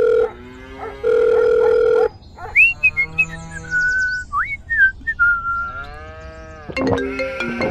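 Two long, steady electronic beeps, about a second each, like a phone tone. They are followed by whistled pitch glides over a drawn-out, animal-like call, and music comes in near the end.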